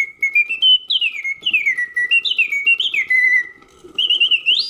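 Mechanical birdsong from a 1960s Karl Griesbaum double singing bird cage on its continuous setting: a bellows-blown whistle sings phrases of warbling trills and quick falling glides, with a brief pause about three and a half seconds in. The serviced movement runs smooth and quiet beneath the song.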